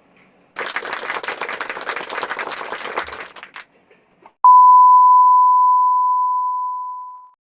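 A dense, crackling rush of many quick clicks, like applause, for about three seconds. Then a loud, steady single-pitched beep starts abruptly and fades out over about three seconds.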